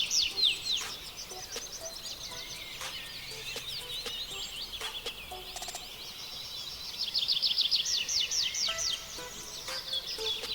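Songbirds singing and chirping, with a fast trill of repeated falling notes near the start and again about seven seconds in, over steady quieter chirping.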